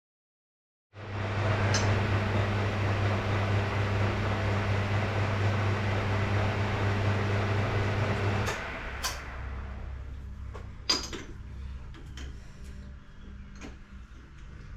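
A machine runs with a steady hum and hiss, then stops suddenly about eight and a half seconds in. A few sharp clicks and knocks follow.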